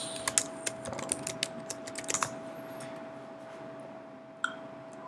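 Typing on a computer keyboard: a quick run of keystrokes for about two seconds, then a single click about four and a half seconds in. A faint steady hum runs underneath.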